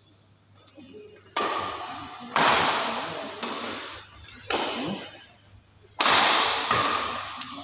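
Badminton rackets striking a shuttlecock in a rally: about five sharp smacks roughly a second apart, starting a little over a second in, each ringing on in the large hall.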